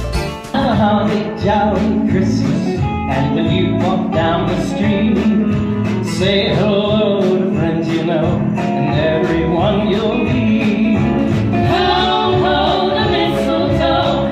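Country-style music with a singing voice and guitar; a new piece comes in about half a second in.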